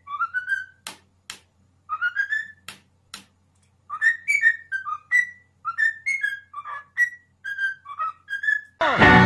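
Cockatiel whistling a string of short, clear notes that slide up and down, sparse at first and then a quicker run about four seconds in, with a few sharp clicks in the first three seconds.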